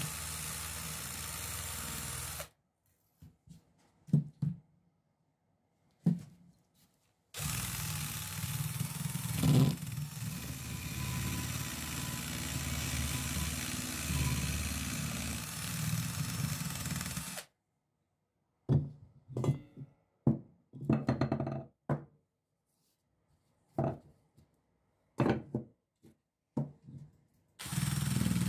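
Cordless drill spinning a small wire brush against a rusty electric motor end cover, scrubbing off rust in steady runs that stop abruptly, one short and one of about ten seconds, starting again near the end. In the pauses, scattered sharp knocks and clicks.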